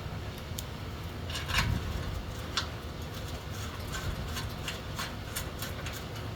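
Irregular metallic clicks and ticks from hand tools and bolts working on a steel ATV exhaust, as the spark arrestor bolts are fitted; a short cluster of clicks comes about one and a half seconds in, with more scattered ones later.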